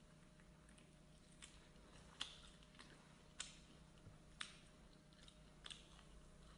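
A person chewing food close to the microphone: a few sharp mouth clicks, irregular and roughly a second apart, over a faint steady hum.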